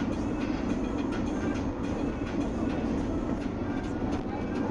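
Steady low rumble of a moving vehicle heard from inside its cabin, with faint rattles.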